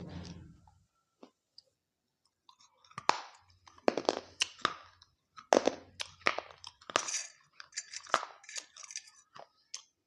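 Close-miked crunching and chewing of crisp papdi (fried wheat wafers) in dahi papdi chaat: a string of sharp crunches starting about three seconds in. A brief low hum comes in the first second.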